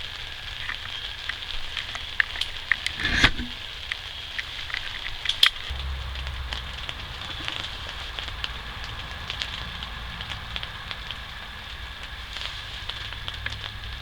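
Outdoor ambience: a steady high drone with many small scattered clicks and crackles, a sharp knock about three seconds in and another about five seconds in, and a low rumble that comes up about six seconds in.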